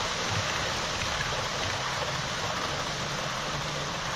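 H0-scale model train, a diesel locomotive hauling passenger coaches, running along the track with a steady rushing rumble of wheels on rail and a faint motor hum, easing slightly as it moves away.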